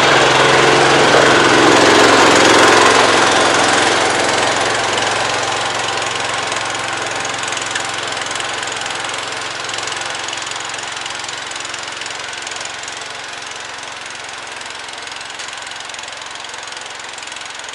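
Small vehicle engine running as the vehicle pulls away, starting abruptly, loudest over the first few seconds and then fading steadily as it drives off.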